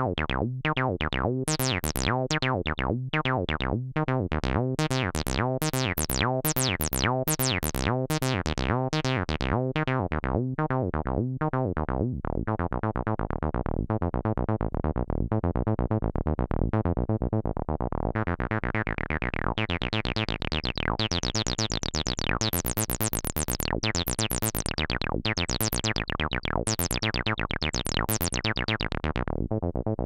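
Cyclone Analogic TT-303 Bass Bot, a TB-303 clone, playing a sequenced acid bass line while its filter cutoff and resonance are turned by hand. At first the notes are short, each with a quick resonant sweep. After about twelve seconds the notes run together. From about eighteen seconds the filter is opened up to a much brighter, resonant sound, then closed down again near the end.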